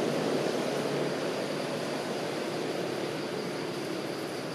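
Steady low background rumble that slowly fades, with faint steady hum tones in it.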